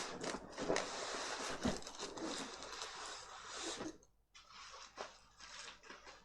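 Loose laptop parts being handled and shuffled: rustling with many light clicks. There is a brief silence about four seconds in, then quieter clicks.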